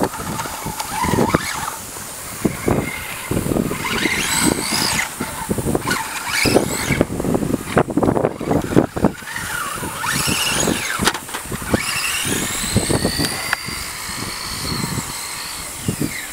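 RC buggy motor whining up and down in pitch as the throttle is worked, with tyres scrubbing and skidding on concrete.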